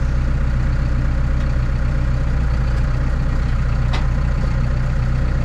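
Tractor's diesel engine idling steadily, with a faint brief click about four seconds in.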